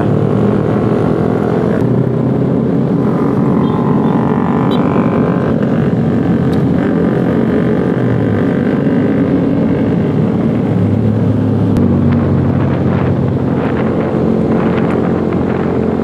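Yamaha R15 V3's 155 cc single-cylinder engine running under way, pulling the bike up to speed through third and fourth gear, with wind noise on the microphone and other motorcycles in traffic alongside.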